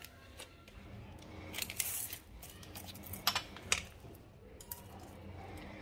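Light metal clinks and knocks from handling a set of 16 mm steel round shafts in an aluminium frame as it is laid on its side, with a steel tape measure being drawn out; a rustle about two seconds in and a few sharp clicks later on.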